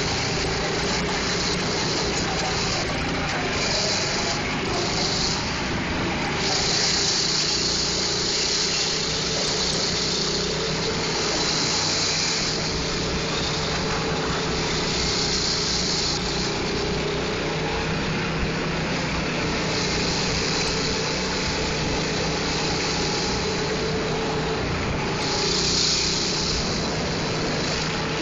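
Go-kart engine running steadily, an even motor drone with no sharp revving.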